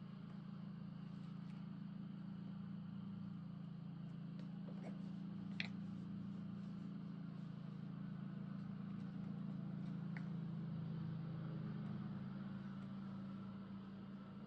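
A low, steady motor drone that swells slightly and eases off near the end, with a few faint light clicks and taps over it.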